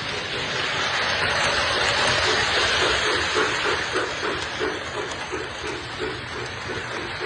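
O gauge model train running on the track: a steady rushing hiss with a rhythmic chuffing beat about two or three times a second.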